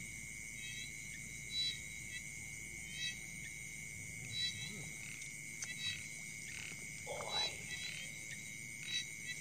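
Night chorus at the water's edge: a steady high trill of insects, with a frog calling in short bursts about every second and a half.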